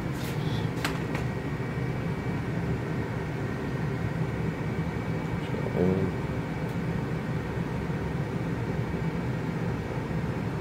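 Steady hum and whir of a running Dell PowerEdge R710 server's cooling fans. A few light clicks come in the first second or so, and a short louder sound comes about six seconds in.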